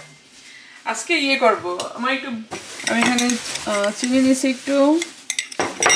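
A metal spoon stirring and scraping instant coffee and sugar with a splash of water in a ceramic mug, beating them into a paste. It clicks against the mug a few times near the end. A person's voice is heard over it.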